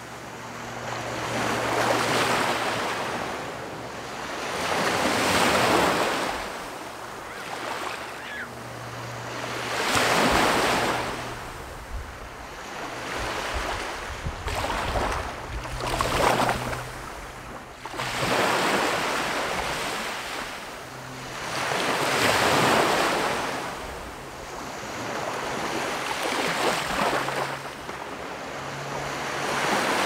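Small waves of the Gulf of Mexico breaking and washing up the sand, one rising-and-fading surge every four to six seconds. Wind rumbles on the microphone underneath.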